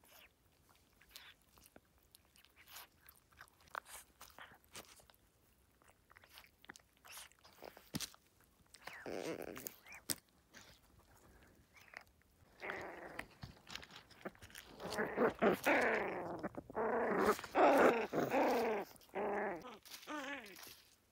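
Two puppies chewing and tearing at a mallard duck carcass: irregular crunching and clicking of bone and flesh. About halfway through, loud high-pitched puppy growls and whines that bend up and down take over and stop just before the end.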